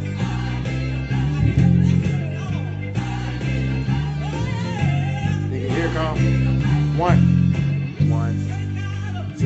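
Electric bass guitar played with the fingers: a gospel bass line of low, held notes changing about once a second. A voice sings over it from about the middle on.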